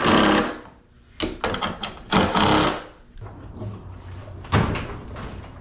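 Hard-handled parts clunking, scraping and rubbing in a string of short noisy knocks, with a sharp knock near the end, as washing machine parts are worked on.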